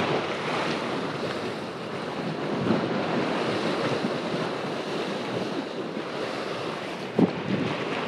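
Choppy sea waves washing against a concrete seawall, with wind buffeting the microphone. A single short knock about seven seconds in.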